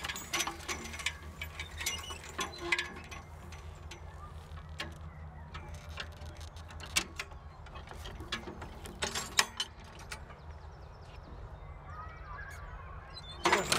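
Horse-drawn Arvika Verken Viking BV-I sickle-bar mower clicking and clattering in its gears and ratchets, in scattered bursts that are busiest near the start, about seven and nine seconds in, and just before the end. A steady low drone of distant traffic lies underneath.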